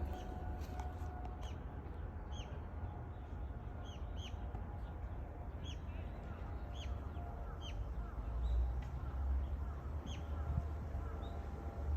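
Outdoor birds chirping: short, high, separate calls repeating irregularly, about one a second, over a steady low outdoor rumble that swells for a moment around two thirds of the way through.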